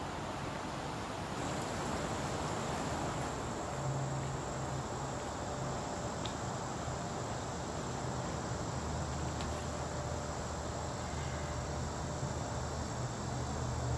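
Steady insect chorus of crickets, a continuous high-pitched trill. A low hum sits underneath and grows stronger in the second half.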